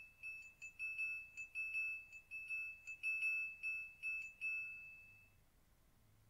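Triangle struck repeatedly in a quick, uneven rhythm, a high bright ringing that dies away about five seconds in.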